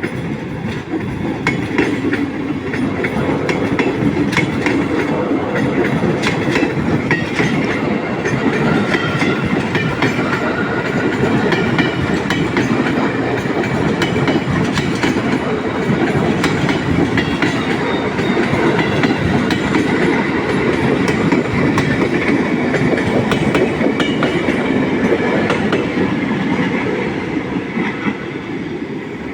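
Train running along the track: a steady, loud rumble with the clack of wheels passing over rail joints, easing a little near the end.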